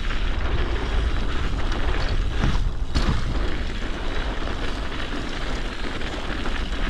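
Wind rumbling over the microphone of a chest-mounted action camera on a mountain bike rolling downhill over packed snow, with the tyres and bike noise underneath. A couple of brief knocks come about two and a half and three seconds in.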